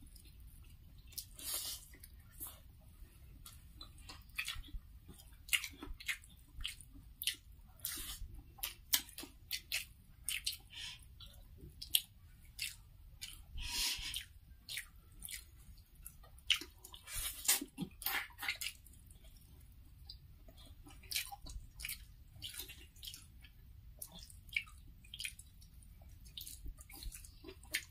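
Close-up sounds of eating with the fingers: wet smacking and chewing, with fingers squishing rice mixed into chicken curry gravy, in many short, irregular clicks.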